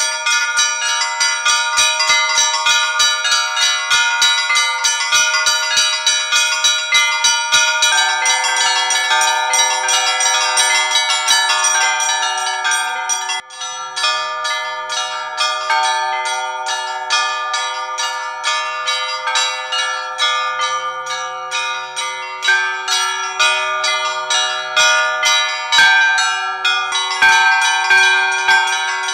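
Russian Orthodox church bells rung in a continuous peal (zvon): rapid, dense strikes of the small treble bells over the sustained ringing of larger bells. A deeper bell joins about eight seconds in, and the peal dips briefly a little after halfway through the first half.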